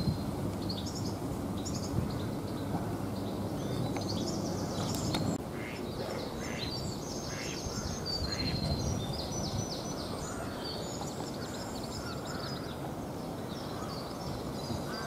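Wind rumbling on the microphone, heaviest for the first five seconds and then easing, with birds calling throughout, including ducks quacking, and short high chirps through the middle.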